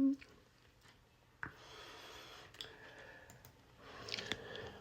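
A held sung note cuts off at the start, then a few faint, sharp clicks over a soft hiss, with a little rustling near the end.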